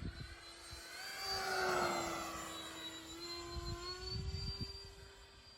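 Electric ducted fan whine from an FMS A-10 RC jet passing by in flight. The whine swells to its loudest about two seconds in, its pitch dipping slightly, then fades as the model flies away.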